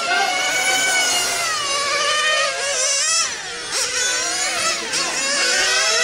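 Several 1/8-scale on-road RC cars' nitro engines running at high revs, with high-pitched overlapping tones. Their pitch keeps falling and rising as the cars brake into corners and accelerate out of them.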